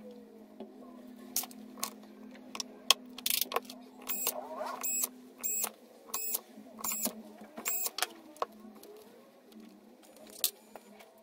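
Bosch cordless screwdriver driving the side-cover screws into an electric scooter hub motor, in a run of short bursts under a second apart, after a few light clicks of screws and parts being handled.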